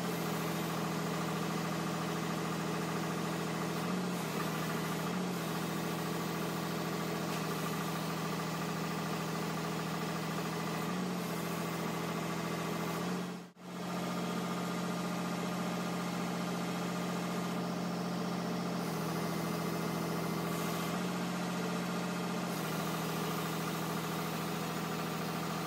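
Foden crane truck's diesel engine running steadily near idle while it drives the crane moving a suspended load. Its note steps slightly up and down a few times, with a brief dropout about halfway through.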